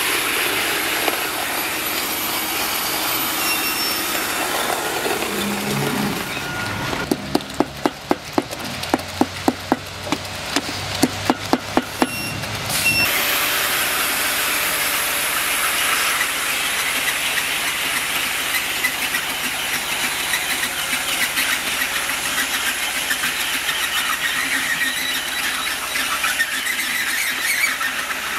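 Powered roller screed running: its motor-driven tube spins as it is pulled over wet concrete, making a steady, high, hissing sound. From about a quarter of the way in, and for roughly five seconds, a dozen sharp knocks come at about two a second.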